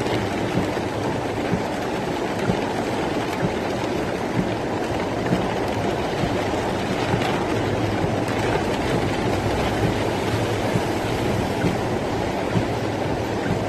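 Torrential rain with rainwater rushing in a steady, heavy flow, and a faint tap about once a second.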